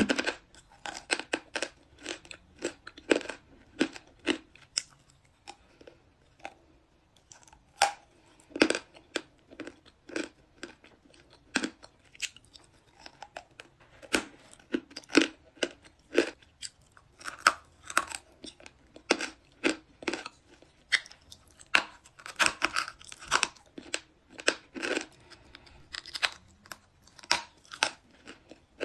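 Close-up crunching of a white chalk bar being bitten and chewed: a long run of sharp, irregular crunches, about one to two a second, thinning out briefly a quarter of the way through.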